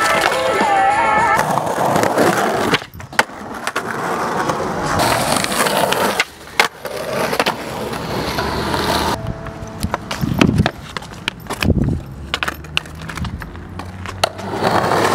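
Skateboard wheels rolling on rough concrete, with several sharp clacks from board pops and landings.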